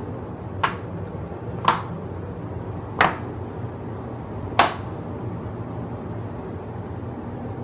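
Four sharp clicks spread over about five seconds, the loudest near the middle, as a dishwasher user-interface control board is pressed into its plastic housing and the housing is snapped together. A steady low hum runs underneath.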